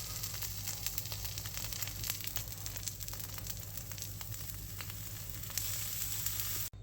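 Buttered roll halves frying in a pan: a steady sizzle of hot butter with small scattered crackles, over a low steady hum.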